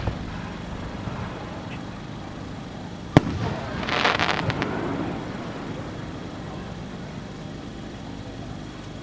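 Aerial firework shell bursting with a single sharp bang about three seconds in, followed by about a second of crackling as its stars spread and burn out.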